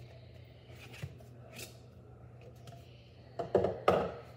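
A plastic cup being handled and opened: faint light rustling, then a quick cluster of sharp plastic knocks and crinkles near the end.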